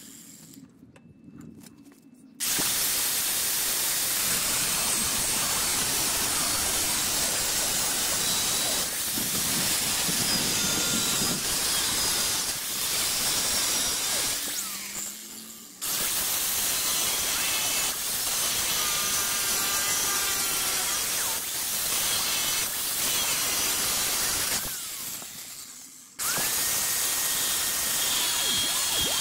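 DeWalt angle grinder with a thin cutting wheel cutting through a steel truck frame rail. The grinder starts sharply about two seconds in and runs steadily. It winds down and cuts back in twice, at about 15 and 26 seconds.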